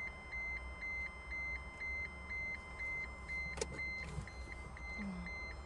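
Rover 200 dashboard warning alarm beeping: a high tone repeating evenly and steadily.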